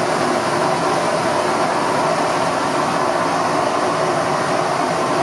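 Southern Railway Maunsell Q class 0-6-0 steam locomotive No. 30541, standing still and letting off steam: a loud, steady hiss.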